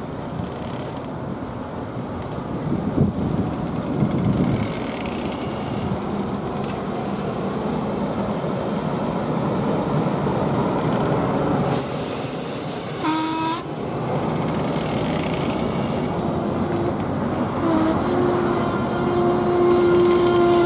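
Metra bilevel commuter cars passing close by, a steady rumble and clatter of wheels on the rails. About twelve seconds in there is a brief high hiss with a falling screech, and from about eighteen seconds on a steady high whine joins the rumble.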